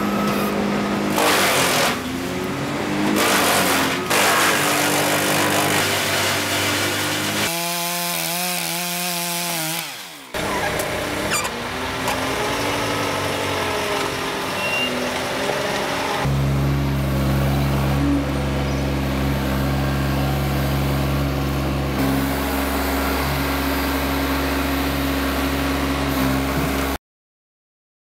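Diesel engines of tree-work machinery running, heard in several short clips joined by cuts: a grapple excavator feeding branches into a wood chipper, and a telehandler handling logs. The engine pitch rises and falls briefly in one clip. A steady low engine drone fills the last part and cuts off abruptly about a second before the end.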